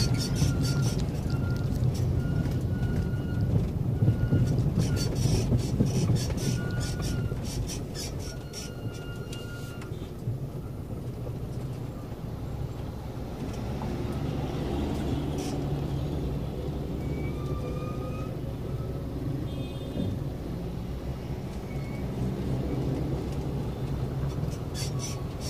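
Steady low engine and road rumble of slow traffic heard from a moving vehicle. Over roughly the first ten seconds music with a beat plays over it.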